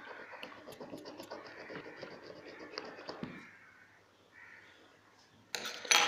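Screwdriver tip scraping across the cracked Gorilla Glass back of a phone, a gritty rasp full of small clicks that stops about three seconds in. Near the end comes a brief, loud clatter.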